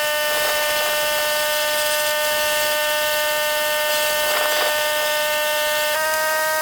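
Sustained electronic synth chord, held steady, then changing to a new chord about six seconds in.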